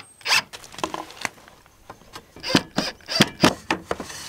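Irregular knocks and light clatter as a coop pop-door frame and its thin aluminium sliding door are handled and fitted against a wooden wall. The knocks are scattered at first and come thick and fast in the second half.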